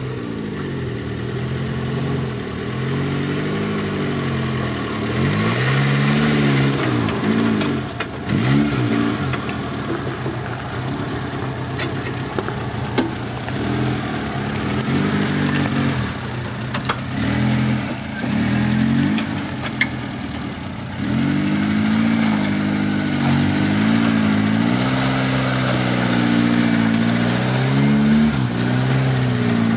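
Suzuki SJ (Samurai) off-roader's engine revving up and dropping back again and again as it crawls over rock, with a few short sharp knocks along the way.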